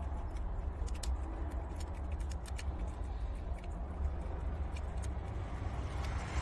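Prairie dogs chewing a crunchy donut-shaped treat: scattered small crunching clicks over a steady low rumble.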